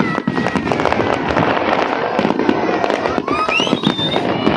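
Fireworks display: dense, continuous crackling and popping of many rapid bursts, which swells in at the start.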